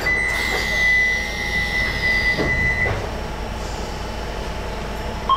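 Docklands Light Railway train's door-closing warning: a steady high tone for about three seconds, with the hiss and falling whine of the sliding doors closing. The train's low hum runs underneath.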